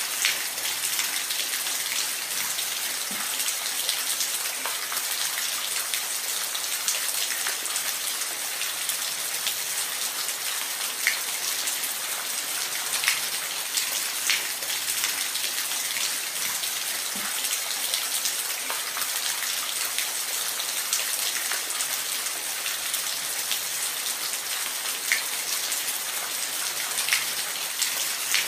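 Steady rain falling, a dense even hiss with scattered sharper drips landing on a surface.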